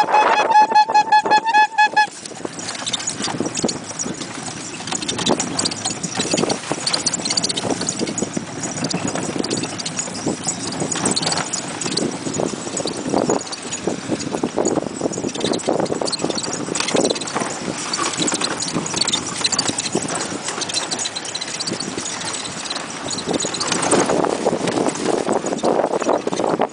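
A pony's hooves clip-clopping on a sandy track as it pulls a horse-drawn cart, with the cart rattling along behind. For the first two seconds a loud, rapidly pulsing high tone sounds over it, then stops abruptly.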